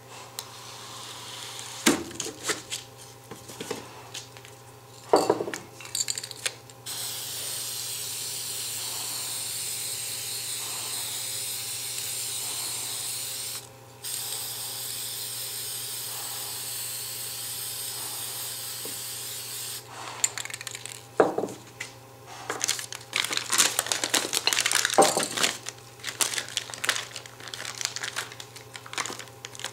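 Aerosol spray-paint can spraying in two long steady hisses, about six seconds each with a brief break between them. Before and after come scattered clinks and crinkling rattles of paint cans and materials being handled.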